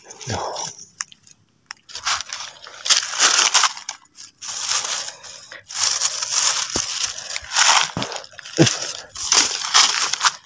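Crunching and rustling of dry leaf litter and undergrowth from footsteps and brushing through low plants, in irregular bursts about once a second.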